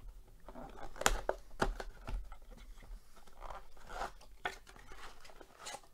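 Cardboard trading-card blaster box being torn open by hand: several sharp cracks of the cardboard tearing, with rustling and crinkling between them.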